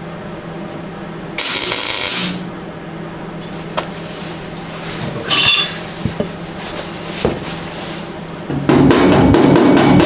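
MIG welder tack-welding a sheet-metal patch panel: a crackling tack of about a second, a brief one around five seconds in, and a longer, louder crackling run near the end.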